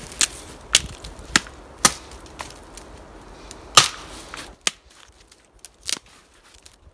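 Dry, dead branches snapping off a pine trunk as they are broken by hand: about eight sharp cracks at irregular intervals, the loudest a little under four seconds in.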